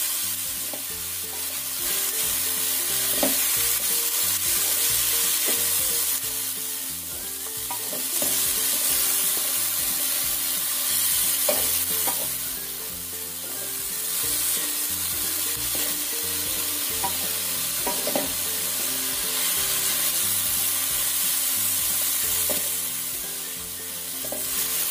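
Sliced green beans and oyster mushrooms sizzling in hot oil in a wok while a spatula stirs and scrapes them. The sizzle swells and eases as they are tossed, with scattered scrapes of the spatula on the pan.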